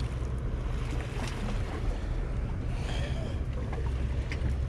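Steady low drone of a motorboat running close offshore, with waves lapping against the rocks.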